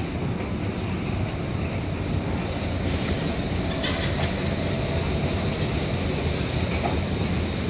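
Subway train rumbling in the station below: a steady low rumble that grows slightly louder, with a brief higher squeak about four seconds in.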